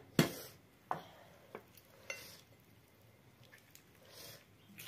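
Knife clinking and tapping against a metal tray while a raw plucked chicken is cut into pieces: one sharp clink just after the start, then a few fainter clicks over the next two seconds.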